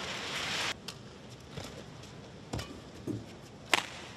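Sharp cracks of badminton rackets striking a shuttlecock: a faint one, then one nearer and a louder one near the end. A short burst of crowd noise opens the sound and stops abruptly within the first second.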